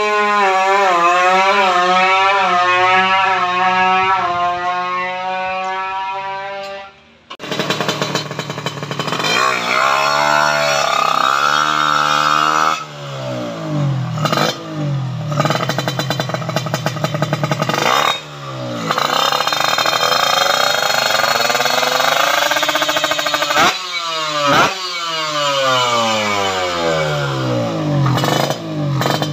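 Kawasaki Ninja motorcycle engine revved hard. For the first several seconds the throttle is pulsed so the pitch wavers quickly up and down, then there is a short break. After that it is blipped up and down through a string of separate rev sweeps.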